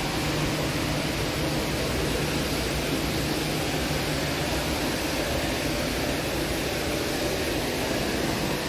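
Steady indoor shopping-mall ambience: an even hiss of air handling and distant background noise from the open concourse.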